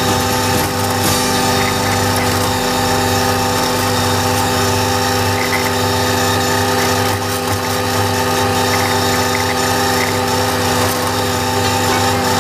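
Valtra A93 tractor's diesel engine running steadily under load, driving an Agrimaster flail mower through its PTO shaft as it cuts grass, a steady mechanical drone with a constant whine.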